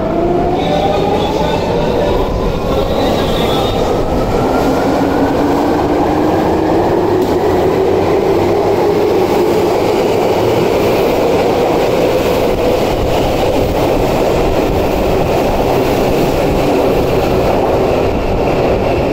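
Tokyu 8500 series electric train pulling out of the station: its traction motors whine, rising steadily in pitch as it gathers speed, over a continuous rumble of wheels on rail.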